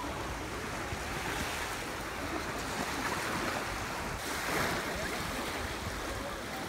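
Steady wash of small waves on a sandy beach, with wind on the microphone. Around four seconds in, the hiss turns slightly brighter.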